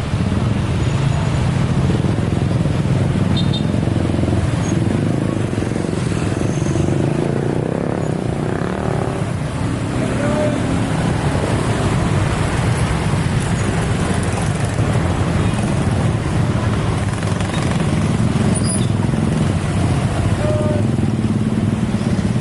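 Steady road traffic: motorcycle and car engines running in a continuous loud rumble.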